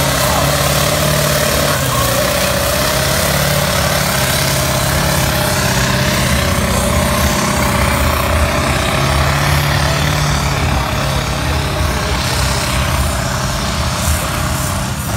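Vintage tractor's diesel engine running flat out under heavy load as it drags a weight-transfer pulling sled, a loud, steady, hard-working note. Thick black exhaust smoke marks it as heavily fuelled at full throttle.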